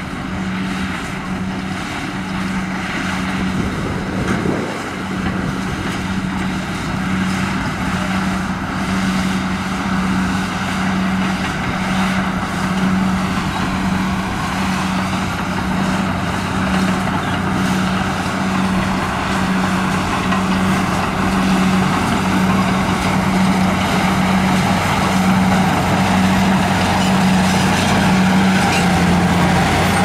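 HBXG crawler bulldozer's diesel engine running as the dozer pushes a pile of dirt with its blade. It is a steady low drone that pulses at a regular rhythm and grows slightly louder toward the end.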